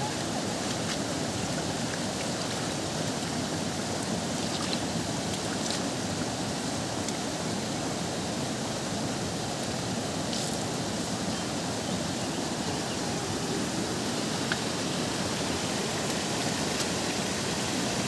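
Steady, even rushing of flowing water, unbroken throughout, with a few faint ticks.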